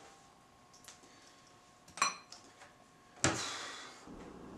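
Faint clinks of something hard at a table, like a dish or cutlery: a light tick, a sharp ringing clink about two seconds in, and a louder knock a little after three seconds that trails off over about half a second.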